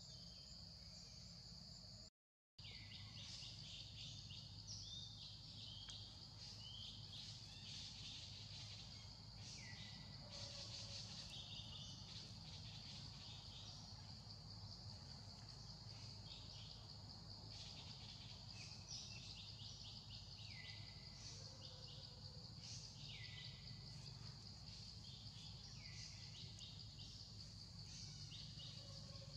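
Faint outdoor insect drone, steady and high-pitched, with a bird repeating a short call that falls in pitch every two to three seconds. The sound cuts out completely for a moment about two seconds in.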